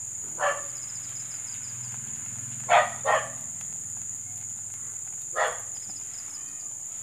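A dog barking four times, two of the barks close together near the middle, over the steady high trill of insects, likely crickets.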